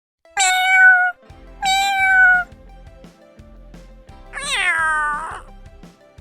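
A domestic cat meowing three times, the last meow longer and falling in pitch, over quiet background music.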